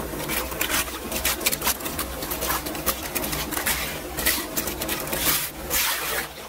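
Floodwater splashing and sloshing, with clicks and scrapes as clogging leaves and debris are pulled out of a curb-inlet storm drain by hand. Near the end the water rushes and gurgles into the drain as the blockage clears.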